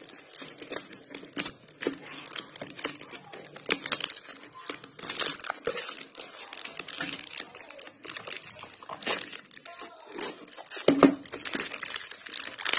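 Plastic packing tape and wrapping on a parcel crinkling and tearing as hands pull at them, in irregular crackles, with a louder knock about eleven seconds in.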